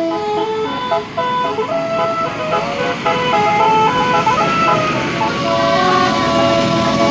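Tour bus basuri musical air horn playing a quick tune of short stepped notes, with a rush of noise building underneath from about halfway.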